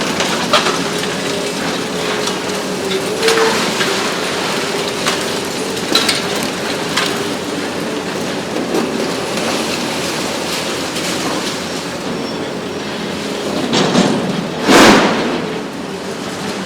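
Hitachi ZX 870 XXL long-front demolition excavator at work: a steady engine and hydraulic drone with scattered sharp cracks and crunches of breaking concrete and debris, and a louder crash near the end.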